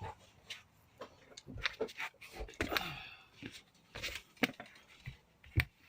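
Scattered knocks, clicks and clunks of things being handled, with a brief scrape about three seconds in and the loudest knock near the end.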